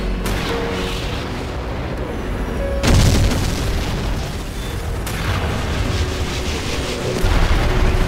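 Explosion sound effects of a helicopter blowing up: a sudden boom about three seconds in and another heavy blast near the end, with rumbling between them, over background score music.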